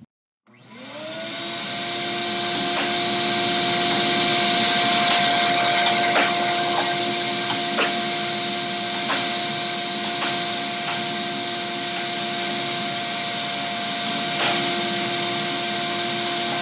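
Shop vac switched on about half a second in, spinning up over a few seconds to a steady, loud whine, its hose reversed to blow air into an air hockey table's air chamber. A few sharp clacks of the mallet striking the puck sound over it.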